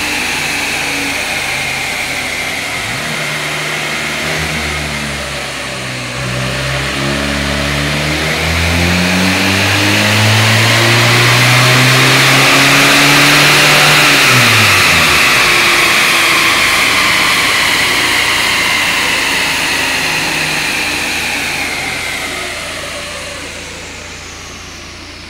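Air-cooled flat-four engine of a Volkswagen Type 2 bay-window bus, run on a rolling-road dyno: it revs up under load, rising in pitch for about ten seconds, then drops sharply as the throttle closes. The tyres and rollers keep whirring as it coasts down and fades near the end.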